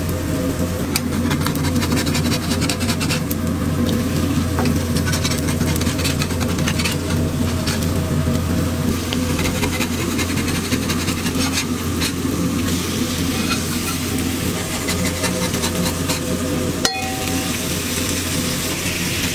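Patties sizzling as they fry on a flat metal griddle, with a metal spatula scraping and clinking against the plate, over a steady low hum. There is one sharp knock near the end.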